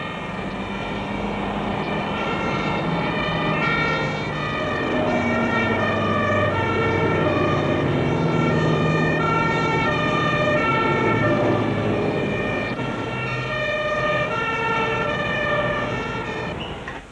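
Two-tone sirens of several German fire engines sounding together, each stepping back and forth between two pitches and out of step with one another, over steady engine and road noise. The sirens fade away near the end.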